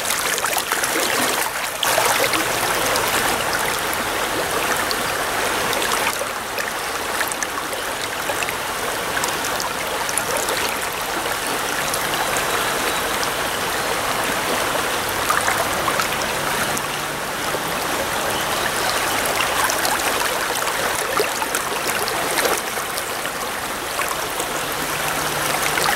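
Swift, high-running trout stream rushing steadily through a riffle.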